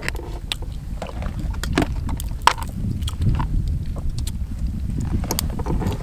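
Wind buffeting the microphone in a steady low rumble, with scattered sharp clicks of cooked mussel shells being handled on a plate; the sharpest click comes about two and a half seconds in.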